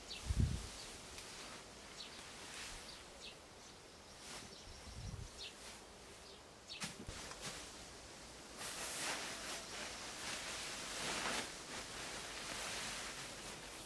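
Pitchfork lifting and tossing freshly cut grass into a wheelbarrow: soft rustling swishes that grow more frequent in the second half, with faint bird chirps in the background.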